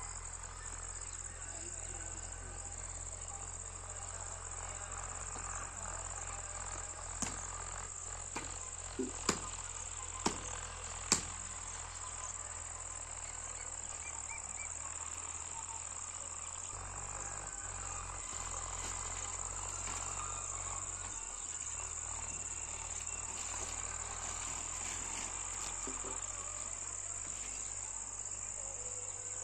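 Insects shrilling in one steady, unbroken high drone, with about half a dozen sharp clicks between about seven and eleven seconds in.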